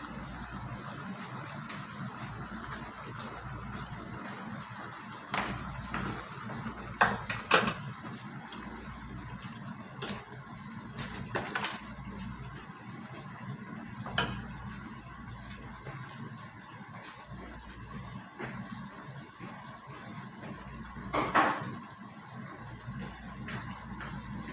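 Tomato sauce with minced chicken simmering in a wok: a steady bubbling hiss over a low hum, broken by occasional short pops, the loudest about seven seconds and twenty-one seconds in.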